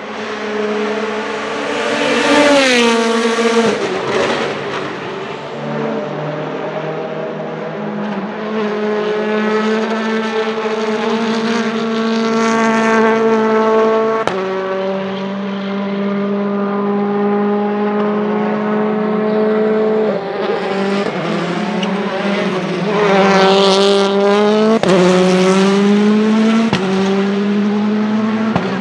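Hyundai i20 WRC rally car's 1.6-litre turbocharged four-cylinder engine running hard on the circuit, its pitch and loudness swelling as the car comes near and falling away as it moves off. Its pitch drops suddenly at each gear change, several times.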